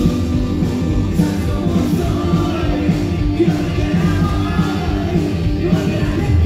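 Rock band playing live, with electric guitars and bass under a male lead singer.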